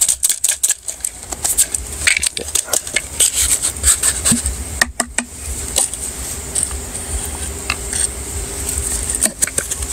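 Scattered light clicks, taps and rustles of small objects being handled and set out on a low offering tray, over a steady high hiss.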